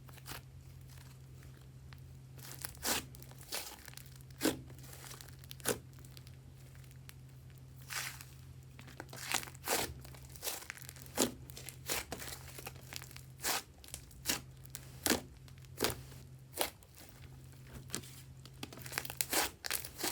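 Butter slime being squeezed and stretched by hand, giving irregular sticky pops and crackles, some in quick clusters.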